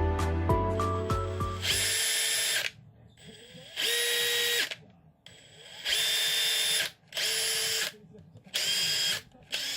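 Makita DTD170 cordless brushless impact driver run unloaded in about five short trigger pulls, each spinning up to a steady motor whine and stopping, with no hammering; a test after replacing its controller, which had left it unable to run in one direction. Background music ends about two seconds in.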